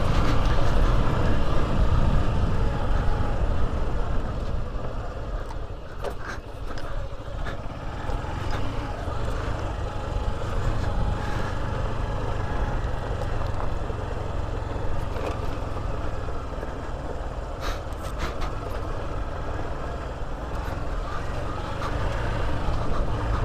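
Motorcycle riding along a rough dirt track: a steady low rumble from engine and ride, with a few sharp knocks about six seconds in and again near eighteen seconds.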